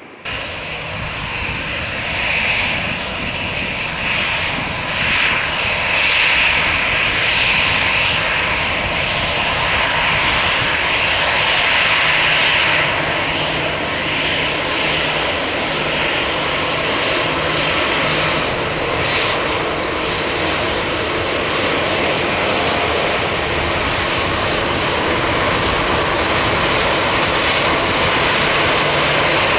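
Airbus A320-214's CFM56-5B jet engines at takeoff power, loud and steady with a strong high whine, building over the first few seconds and then holding.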